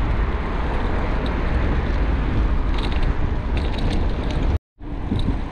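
Wind rumbling and buffeting on a camera microphone while riding a bicycle, a steady heavy rumble that cuts out abruptly for a moment near the end.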